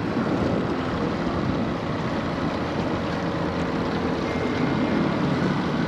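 Steady hum of a boat's motor mixed with wind on the microphone and water noise.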